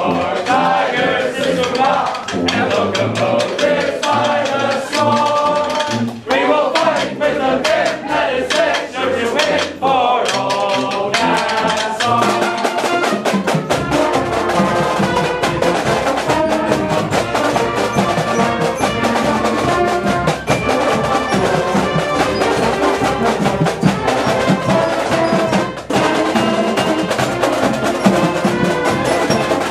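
A pep band of trumpets, other brass and snare drums playing a lively tune; about halfway through, deep bass-drum beats come in and the playing fills out.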